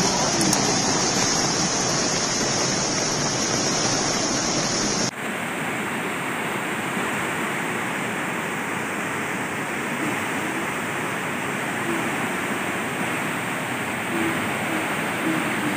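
Floodwater rushing in a steady, loud torrent. About five seconds in the sound changes abruptly to the duller, steady rush of the flooded Simsang River.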